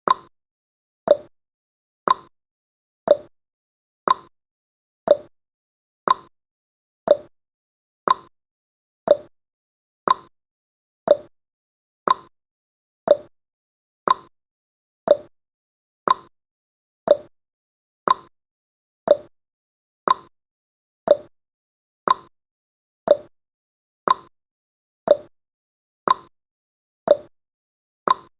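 Clock tick-tock sound effect of a countdown timer, one sharp tick each second, alternating between a higher and a lower pitch, marking off the seconds.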